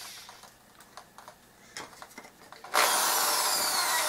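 Cordless drill driving a screw into plywood. A few light clicks come first. About two-thirds of the way in, the drill starts and runs, its whine slowly dropping in pitch as the screw goes in.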